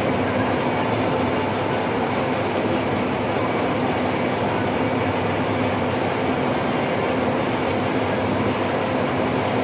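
Universal gear hobbing machine running steadily while hobbing a spur gear: a dense, even machine noise with a steady hum and a faint click about every two seconds.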